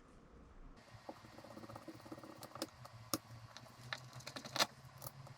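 Small carburettor screws and parts being handled: a scattering of light irregular clicks and ticks, a few louder ones near the end, over a faint steady hum.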